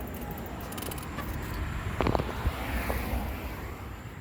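Steady low rumble of street noise on the phone's microphone, with one short knock about two seconds in, like the bike light or its cable being handled.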